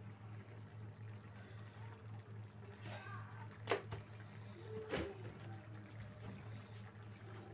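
Pumpkin curry in tamarind gravy simmering in a pan: faint bubbling, with two sharp pops in the thick gravy a little over a second apart near the middle, over a steady low hum.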